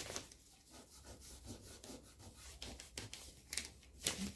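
Faint, irregular scratching strokes of leaves, flowers or charcoal being rubbed onto paper to colour a drawing, with a few sharp clicks near the end.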